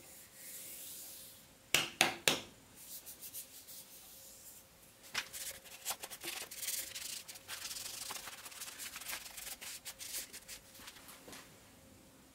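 A cloth rag rubbing and wiping over a steel machine vice, a scrubbing run with many small clicks from about five seconds in to about eleven seconds. Three sharp knocks on the vice come about two seconds in.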